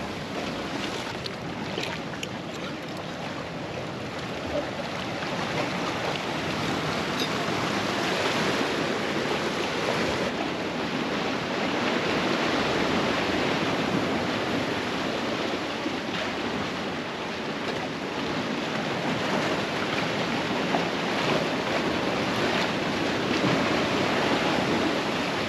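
Ocean surf washing and churning among the rocks of a rocky shoreline: a steady rushing noise that swells and eases slowly.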